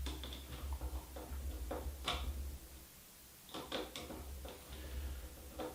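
A screw being driven by hand with a screwdriver into the edge of an aluminium screen frame through a hinge: scattered small clicks and light knocks at irregular times, with low handling rumble.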